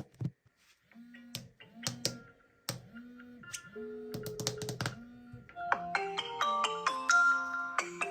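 Smartphone incoming-call ringtone: after a brief gap, sharp clicks over short repeated low notes, building about six seconds in into a fuller, bright melody of many notes.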